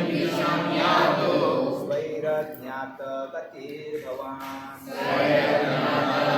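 A group of voices chanting in unison, with held sung notes. The chanting grows quieter about two seconds in and swells again about five seconds in, like a call-and-response recitation.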